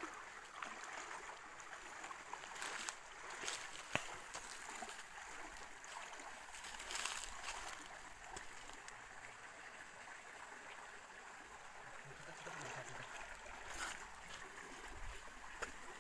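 Shallow rocky stream flowing and trickling, with a few splashes and knocks as a wader steps through the water and dips electrofishing poles and a hand net; a sharp knock about four seconds in.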